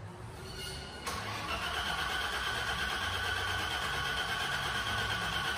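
BMW E30 engine being started after years of standing. It comes in suddenly about a second in and then runs steadily for several seconds.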